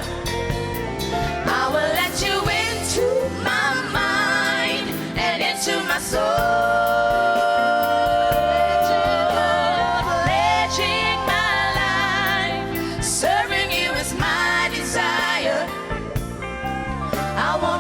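Christian worship song: singing with vibrato over steady instrumental backing.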